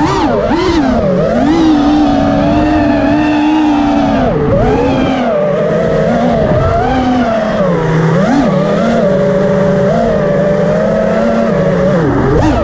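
FPV racing quadcopter's brushless motors and propellers whining, the pitch rising and falling with the throttle.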